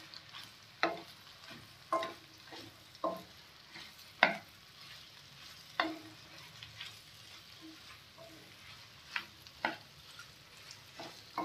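A spatula stirs flat beans and carrots in a steel kadhai, scraping and knocking against the pan about once a second, with a quieter gap partway through. Under the strokes the vegetables sizzle faintly as they fry in oil.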